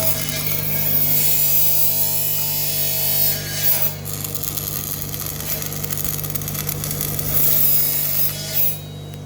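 A power tool grinding metal: a steady hum under a rough rasping noise that drops off shortly before the end.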